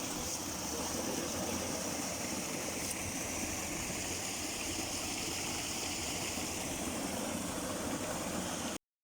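Forest stream flowing, a steady babbling rush of water.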